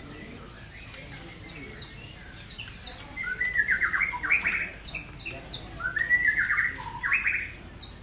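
Many caged songbirds chirping together, with one bird close by giving two loud calls, each over a second long, about three and six seconds in.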